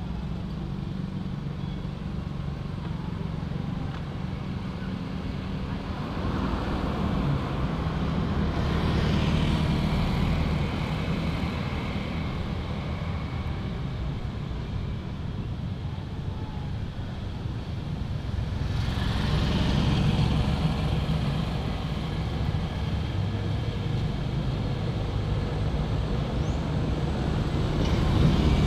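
Motor vehicle engine running steadily, swelling louder twice, about a quarter and again about two-thirds of the way through.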